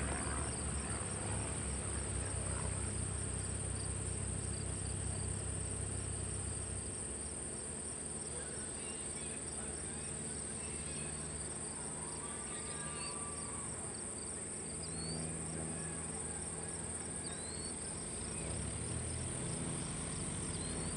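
Crickets and other insects chirping steadily, with a continuous high buzz and rapid repeating ticks, over the low, steady hum of a biplane's engine idling on the runway. A few short chirps come through about midway.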